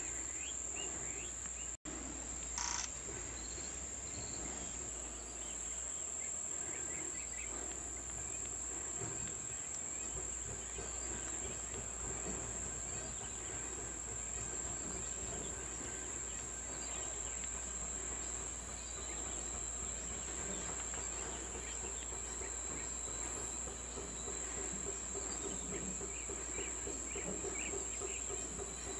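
Steady high-pitched drone of insects, one unbroken tone, with a short sharp sound just under three seconds in.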